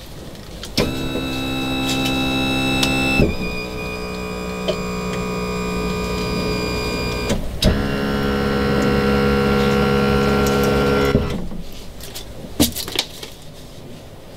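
Yamaha F70 outboard's electric power tilt-and-trim motor running with a steady whine, raising the outboard and then lowering it. It starts about a second in and shifts pitch partway up. It stops briefly about halfway through, then runs again and stops about three seconds before the end.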